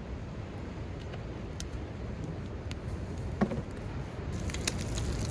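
Cooking oil heating in a frying pan over a wood campfire, with the fire crackling in sparse pops and the oil beginning to sizzle, over a steady low rumble. A brief sharp squeak about three and a half seconds in.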